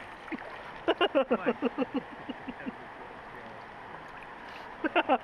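A man laughing in two bouts of quick repeated "ha" pulses, over the steady rush of creek water.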